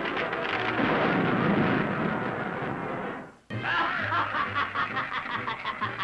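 Cartoon soundtrack: music with sound effects, a dense rushing sound for about three seconds that cuts off suddenly, then a quick rhythmic run of short strokes over low notes.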